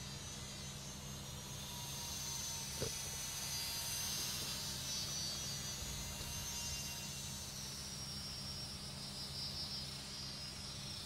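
Small radio-controlled model biplane flying overhead: a thin, high whine from its motor and propeller that wavers up and down in pitch, over a steady low hum.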